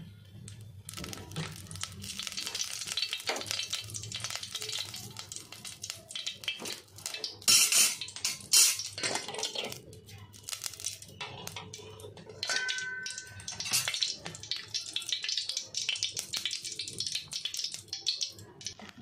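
Cooking oil crackling and sizzling as it heats in an aluminium pot on a gas burner. Two loud metal knocks from the pot come about seven and a half and nine seconds in.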